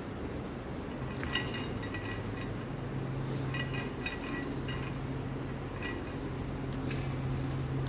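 Light metallic clinking and jingling in four short spells, over a steady low hum.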